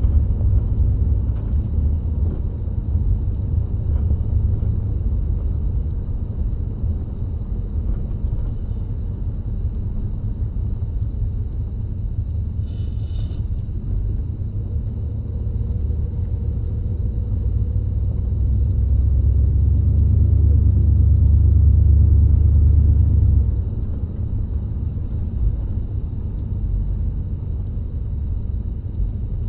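1972 Chrysler Newport's V8 engine running steadily. It grows louder for a few seconds about two-thirds of the way through, then drops back.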